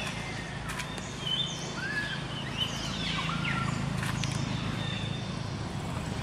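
Birds chirping and whistling in short calls, some quick falling whistles and some short flat notes, over a steady low background rumble.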